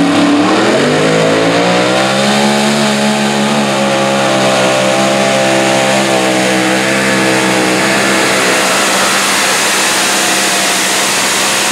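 Mini modified pulling tractor's supercharged V8 revving up over the first couple of seconds as it launches, then held at steady high revs under full load as it drags the weight sled down the track.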